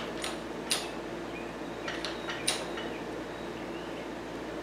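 A few light, sharp metallic clicks from a shop press as its long jack handle is worked, with a steady low hum underneath. The two strongest clicks come within the first second, and two more come about two and a half seconds in.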